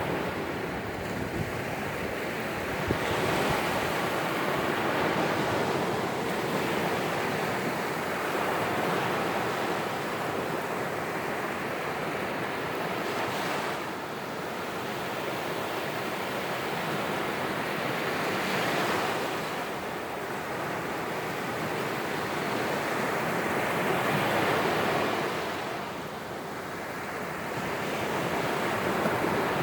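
Sea waves breaking on a sandy beach: a steady rush of surf that swells as a wave breaks roughly every five seconds.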